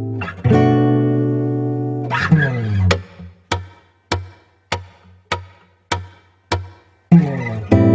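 Background music played on an acoustic guitar: a ringing chord slides down in pitch about two seconds in, then a run of short, sharp muted hits comes about every 0.6 seconds, and full ringing chords return near the end.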